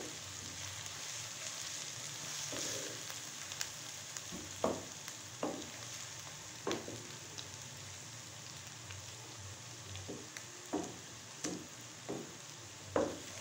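Onions with ginger-garlic frying in oil in a non-stick pan: a steady quiet sizzle, with the wooden spatula knocking and scraping against the pan about once a second as it is stirred.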